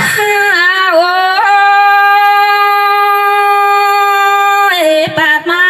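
A woman singing Tai Dam khắp into a microphone, a solo voice: a wavering, ornamented opening, then one long held note for about three seconds, breaking into quick pitch turns near the end.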